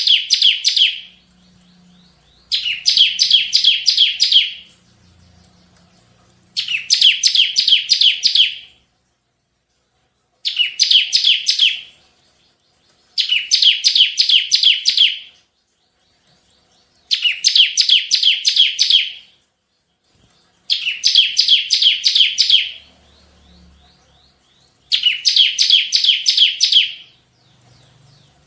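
Bar-winged prinia (ciblek) singing in the rapid 'tembakan' burst style: about eight song bouts, each roughly two seconds of fast, sharp, high notes, repeated about every four seconds with short pauses between.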